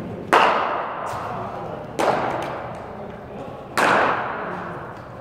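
Three sharp knocks of a cricket ball being struck, roughly 1.7 seconds apart, the first and loudest just after a delivery. Each rings on with a long echo in a large indoor hall.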